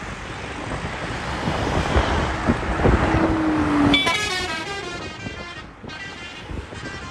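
Vehicle horn sounding in a steady tone about three seconds in, over a rising rush of engine and road noise, followed by a wavering, siren-like wail that fades.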